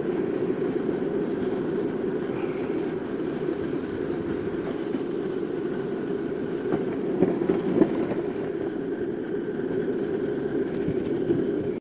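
Longboard wheels rolling over asphalt: a steady, even rumble, with a few louder knocks about two-thirds of the way through.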